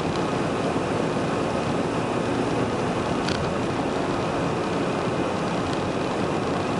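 Steady engine and road noise inside the cab of an old truck driving along a city road, with a brief faint tick about three seconds in.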